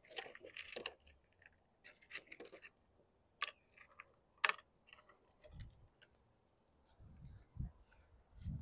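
Scattered light clicks and taps of small parts being handled, with one sharper tap about four and a half seconds in and a few dull low thumps near the end.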